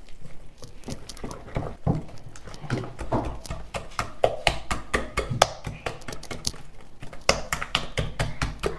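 Wire balloon whisk beating thick batter in a glass bowl, its wires clicking rapidly and unevenly against the glass.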